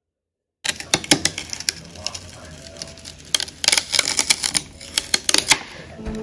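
Wüsthof chef's knife chopping celery stalks on a plastic cutting board: a quick, uneven run of sharp chops and taps, starting about half a second in.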